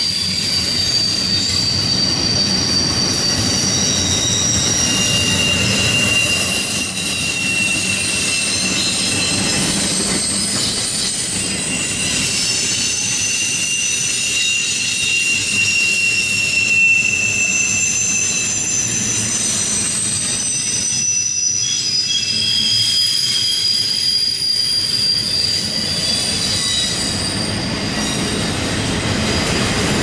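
CSX double-stack intermodal train's well cars rolling past on a curve: a steady rumble of steel wheels on rail, with several high, thin wheel squeals that come and go as the flanges grind against the curved rail.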